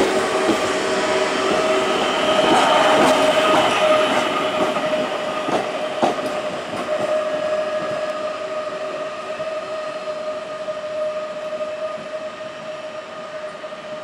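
PESA Elf EN64 electric multiple unit pulling away and receding, its traction motors giving a steady whine. Its wheels click over rail joints and points in the first few seconds, and the sound fades as the train moves off.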